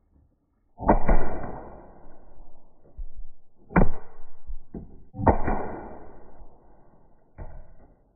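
Umarex HDR 50 .50-calibre CO2 gun firing aluminium balls: four loud, sharp shots a second and a half to three seconds apart, each with a short ringing tail, and fainter knocks in between.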